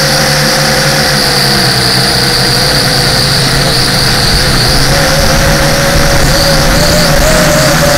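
Motor and propeller of a small model aircraft running steadily, heard up close from an onboard camera, with its pitch wavering slightly in the second half.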